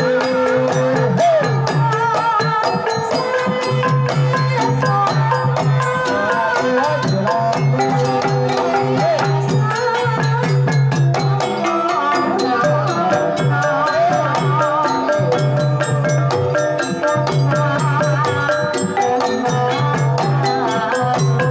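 A Javanese Banyumasan gamelan ensemble playing a tayub gending: kendang hand drums keep a steady, busy beat under bonang and saron metallophones and gongs, and a female sinden sings a wavering vocal line over the top.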